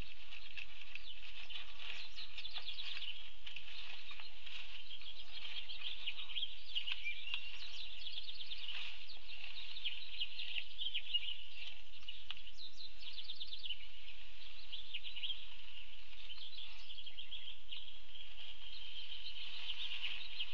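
Small birds chirping and trilling in a steady, busy chorus of short high notes, over a faint low hum.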